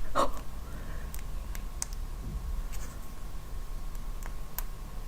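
Scattered small, sharp clicks and ticks, about a dozen at uneven intervals with a fuller click just after the start, over a faint steady hum.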